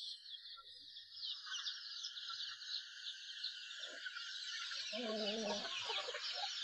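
Domestic chickens clucking while they feed, with a louder drawn-out hen call about five seconds in, over a steady high-pitched background chorus.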